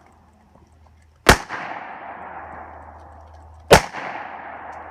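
Two gunshots about two and a half seconds apart, each followed by a long rolling echo that fades away.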